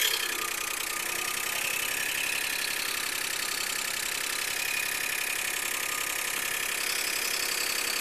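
Toyota Crown V6 engine idling, with a rapid, even 'da-da-da' ticking from the valvetrain. This is the lifter tick of hydraulic lash adjusters losing pressure: their small oil passages are clogged with sludge and carbon.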